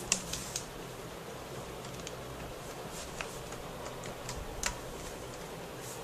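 A few light plastic clicks at irregular spacing as a small screwdriver pries at the plastic screen bezel of an Asus Eee PC netbook, working it off its snap-in clips.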